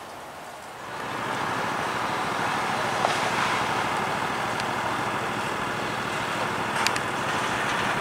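Steady noise of road traffic, coming in about a second in and holding even, with a couple of faint clicks.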